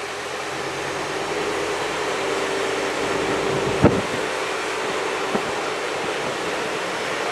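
Narrow-gauge diesel-hauled passenger train pulling away, the locomotive's engine and the coach's wheels giving a steady running noise with a constant hum. A sharp knock about four seconds in and a lighter one a second and a half later.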